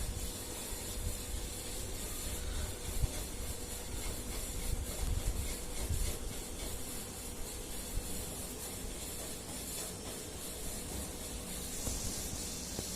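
Steady background hiss with a faint low rumble and a faint steady hum, broken by a few small soft knocks.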